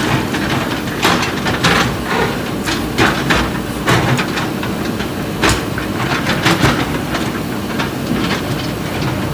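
JCB 3DX backhoe loader diesel engine running under load, with irregular sharp clanks and knocks from its bucket striking and breaking up concrete, several each second at times.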